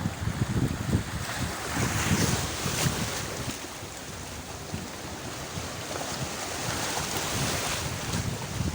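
Sea waves washing ashore, swelling about two seconds in and again near the end, with wind rumbling on the microphone.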